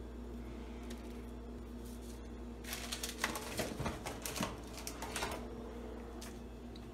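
A quick run of light taps and rustles from handling things at a kitchen counter for about three seconds in the middle, over a steady low hum.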